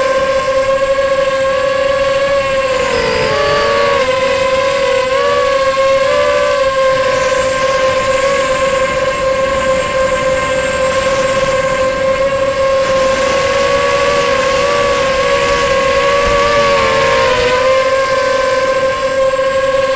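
Motors and propellers of a 250-size racing quadcopter, heard from on board: a loud, steady high whine whose pitch dips and comes back several times as the throttle changes.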